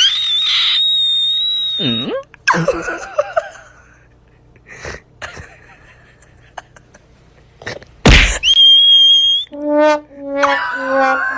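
Cartoon-style comedy sound effects: a held whistle tone, a falling glide and a few knocks. About eight seconds in comes a sudden loud hit and another held whistle tone, then a few short stepped brass-like horn notes near the end.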